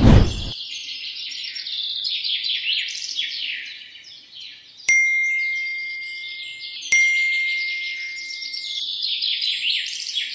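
Dense, rapid bird chirping, with two bell-like chime strikes about five and seven seconds in, each ringing for about two seconds. A short loud thud at the very start.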